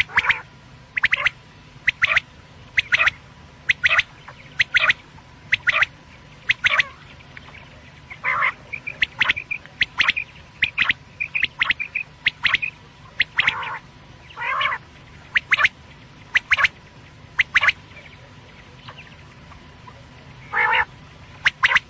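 Quail calling in short, sharp notes repeated about once a second, some notes longer and fuller, over a faint steady hum. It is a recorded quail call of the kind played to lure quail.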